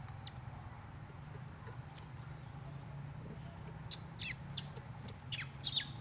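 High-pitched animal squeaks: one wavering squeal about two seconds in, then several short squeaks that each drop sharply in pitch near the end, over a steady low hum.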